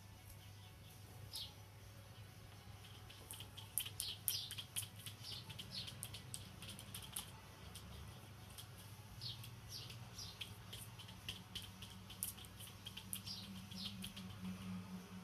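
Faint ticking and tapping of kittens' claws and paws on mirror glass and a wooden floor, clustered in quick runs, with short high chirps now and then and a low steady hum underneath.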